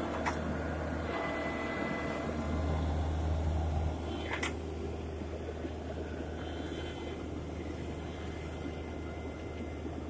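Engine of a horizontal directional drilling rig running steadily with a low drone, a little louder for the first four seconds and then quieter. A brief high squeak sounds about four and a half seconds in.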